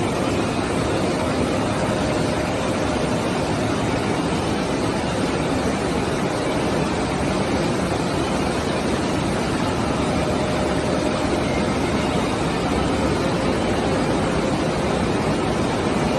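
Flux-cored welding wire production line running: a steady, even machine noise from its rollers and drives, with a faint steady tone over it.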